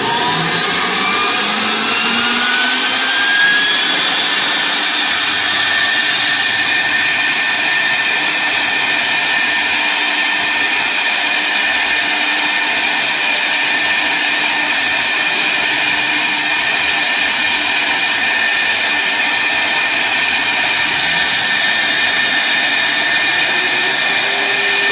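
CNC router spindle motor spinning up, its whine rising in pitch over the first few seconds, then running steadily at speed with a high, steady whine over a hiss.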